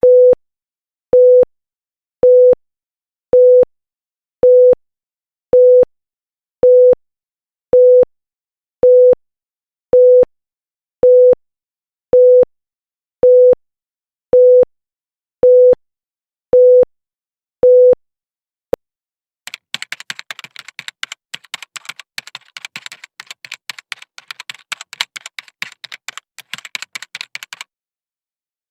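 A Morse code tone near 500 Hz sounding the letter T, a single dash, over and over about once a second for some eighteen seconds. After a lone click, about eight seconds of rapid, irregular typing clicks follow.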